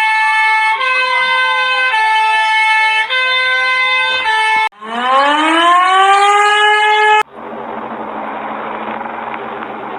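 Electronic emergency-alert alarm tones. Loud held electronic tones change pitch about once a second over a slowly gliding tone. About five seconds in, a siren winds up, rising in pitch and levelling off. From about seven seconds a quieter, duller buzz with hiss takes over.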